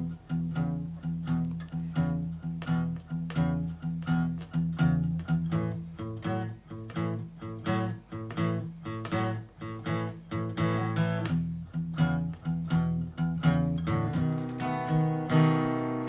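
Background music: a guitar strummed in a steady rhythm.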